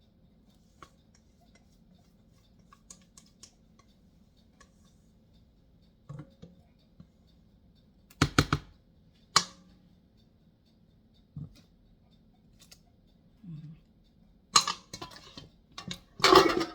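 Scattered knocks and clatters of cake pans and utensils being handled on a kitchen counter, with a quick cluster of sharp knocks about eight seconds in and louder clatter near the end, over a faint steady hum.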